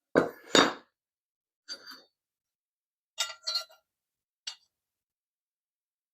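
Metal squares clinking and knocking as they are handled against each other and set down. There is a loud double knock at the start, then a few lighter clinks, the last a single small one.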